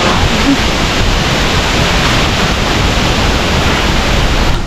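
Strong storm wind blowing hard, a loud steady rush with heavy rumble from the gusts hitting the microphone; it cuts off abruptly near the end.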